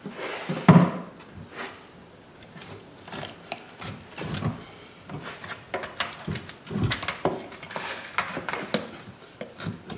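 Knife and screwdriver scraping, prying and knocking at a boiled longhorn bull skull in a utility sink, with scattered clicks and one heavy thump just under a second in.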